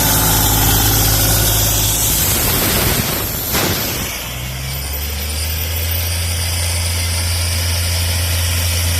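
Isuzu three-cylinder diesel engine of an Airman PDS90S portable air compressor running steadily; about four seconds in its note shifts and settles into a lower, slightly quieter hum.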